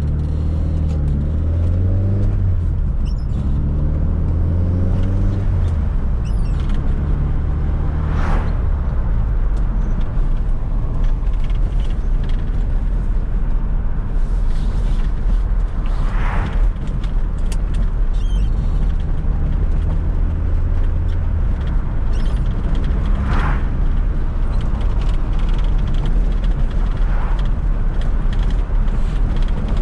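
1995 Fiat Coupe 2.0 16V Turbo's turbocharged four-cylinder engine running under way, revs rising and falling through the gears. About four short turbo flutter bursts come as the throttle is lifted.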